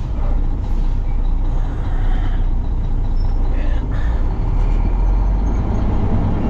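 Truck engine and road noise heard inside the cab while driving, a steady low drone.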